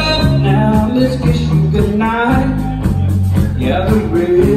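Live country-rock band playing: electric guitars, bass guitar and drum kit with a steady cymbal beat.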